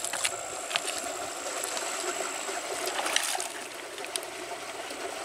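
River water running steadily, with a few short sharp clicks or knocks and a faint steady high-pitched whine above it.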